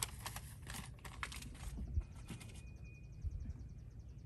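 Crinkling and clicking as a canvas and its wrapping are handled, with dull bumps at about two and three seconds in. Then a fast, even, high ticking trill runs on in the background.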